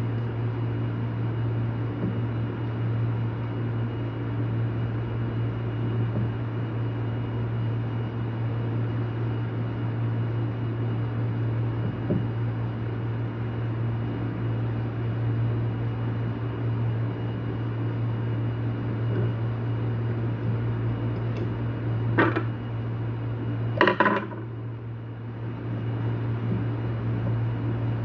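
A steady low machine hum, with two sharp metallic clinks about three-quarters of the way through as small metal parts and tools are handled during a carbon brush and spring replacement on a siren motor.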